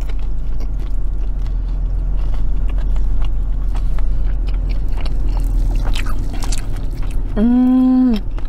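Close-up chewing and biting of fried macaroni and cheese balls, with small wet clicks of the mouth, over a steady low rumble inside a car's cabin. Near the end comes a hummed "mmm" of enjoyment, lasting about a second.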